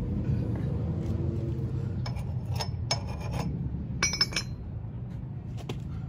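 Light metallic clinks of metal parts or tools being handled, a handful of sharp ringing chinks clustered from about two to four and a half seconds in, over a low steady rumble.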